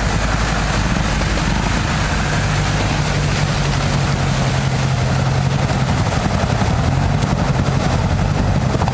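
Off-road 4x4 SUV engine pulling steadily under load as the truck drives through a muddy, water-filled track, with a steady hiss of mud and water splashing around the wheels. The engine pitch rises slightly partway through.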